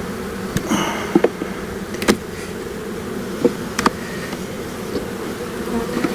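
Honeybees buzzing steadily around an open hive, broken by several sharp wooden clicks and knocks as the hive's frames and boxes are handled and put back together.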